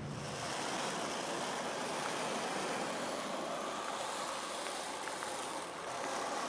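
A floor squeegee pushing wet epoxy-and-sand slurry across concrete, a steady scraping with a brief lull near the end.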